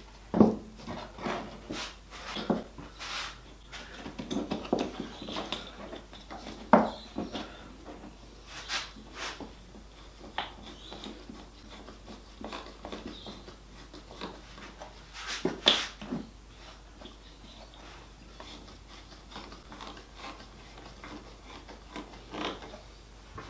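Handling of a glued-up wooden box and a ratcheting band clamp on a wooden workbench: irregular knocks, clicks and rubbing as the strap is fitted and tightened around the box. The sharpest knocks come about half a second in, near seven seconds and near sixteen seconds.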